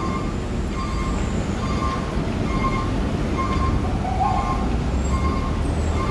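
Vehicle traffic rumbling steadily below, with an electronic beep repeating a little more than once a second and a short rising tone about four seconds in.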